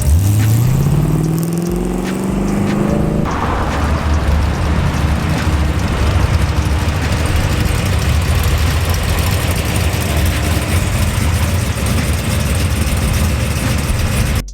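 Mustang's engine accelerating, its pitch rising steadily for about three seconds, then giving way suddenly to a loud, steady rush of engine, road and wind noise.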